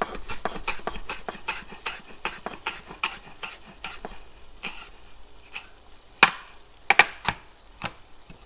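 Kitchen knife slicing fresh basil into a chiffonade on a cutting board: quick, even strokes, about four to five a second, for the first half, then a few louder, spaced knocks on the board.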